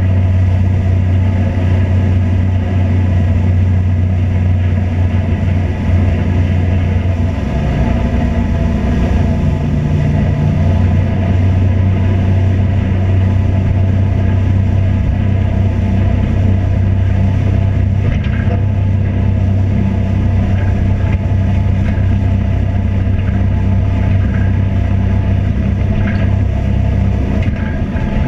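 A vehicle engine running steadily with a low drone, its pitch shifting briefly about eight seconds in.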